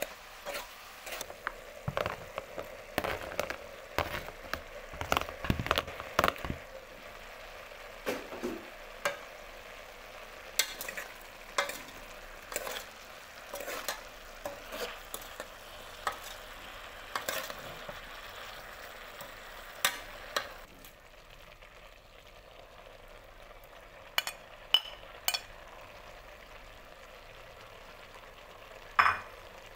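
Vegetables sizzling as they stir-fry in a metal pot, with a utensil scraping and knocking against the pot over and over. The sizzle dies down about two-thirds of the way through, and a few sharp knocks follow near the end.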